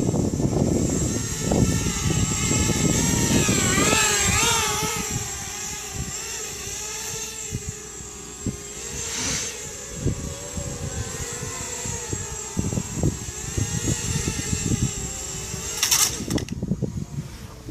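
FPV quadcopter's electric motors whining, their pitch rising and falling with the throttle, over heavy low noise. Near the end there is a sharp knock, and the motor whine drops away after it, typical of the quad crashing.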